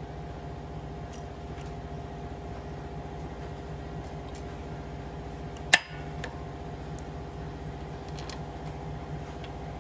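Small metallic clicks and taps of nuts and a pump body being fitted by hand to the gear case of a Yanmar S13 diesel engine, with one sharp metallic click about six seconds in. A steady mechanical hum runs underneath.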